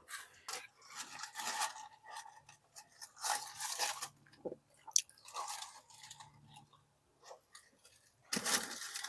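Close-up crunching and chewing of crispy fried chicken, in irregular bursts with short pauses between them.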